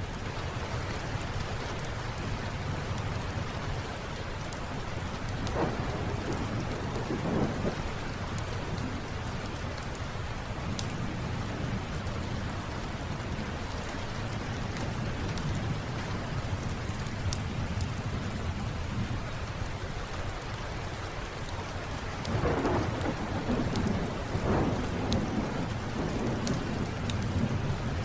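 Steady rain with a low, continuous thunder rumble that swells louder twice, with scattered sharp crackles from a wood fire.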